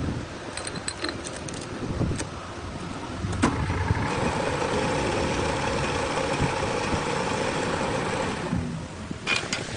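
Metal lathe running: a few sharp clicks in the first couple of seconds, then a steady pitched whine from about three and a half seconds in that stops about a second before the end, followed by a couple more clicks.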